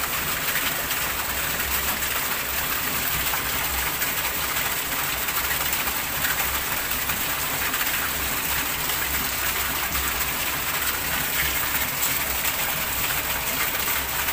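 Heavy rain pouring onto the surface of a shallow fish pond, a steady, even hiss of splashing water.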